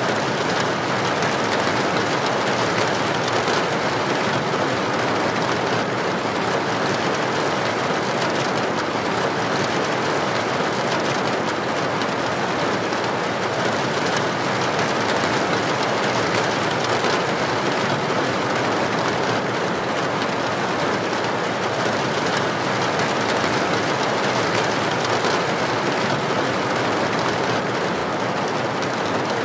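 Steady rain falling, an even, unbroken hiss of raindrops with no thunder or other events.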